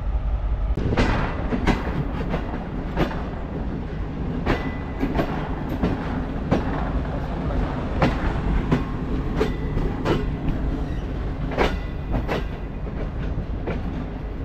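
Railway carriages rolling slowly, their wheels clacking over rail joints and points, with sharp clacks at uneven gaps over a steady rumble.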